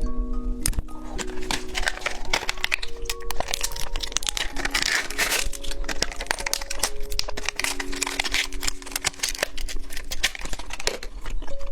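Plastic candy wrapper crinkling and crackling while being handled, loudest in the middle, over background music of plain held notes.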